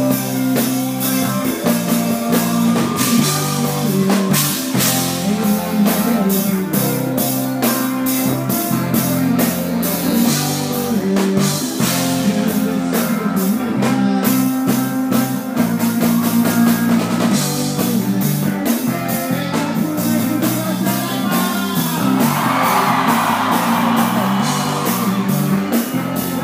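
A live rock band playing loudly: a drum kit keeping a steady beat under bass, electric guitar and singing.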